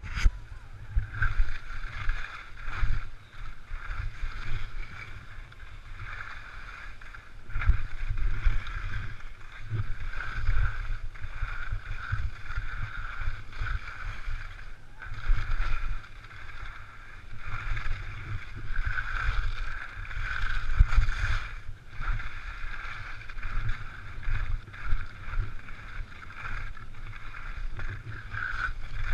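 Skis hissing and scraping over hard, chopped-up piste snow during a downhill run, swelling and fading with each turn, while wind buffets the camera microphone in uneven gusts.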